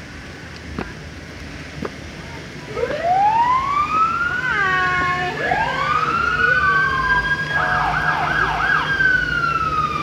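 Electronic siren on a fire and rescue pickup truck, starting about three seconds in with a rising wail. It switches to quick up-and-down yelps, wails again, yelps again and ends on a falling wail.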